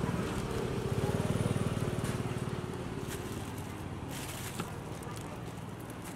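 A small motorbike engine running with a fast, even pulse, loudest in the first two seconds or so and then easing to a steadier hum. A few light crackles of a plastic bag being handled come through over it.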